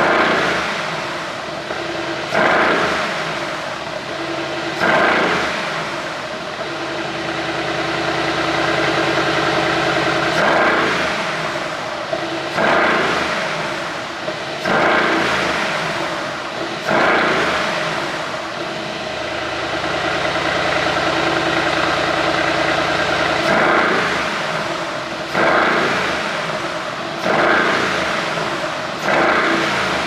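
The Mercedes-AMG GLC63 S's twin-turbo V8 is free-revved while stationary, heard at the exhaust tips. It goes in sharp throttle blips every two seconds or so, each falling back off. Twice it is held at higher revs for a few seconds, about a quarter of the way in and again past the middle. The revving tests the exhaust pops and crackles on the overrun.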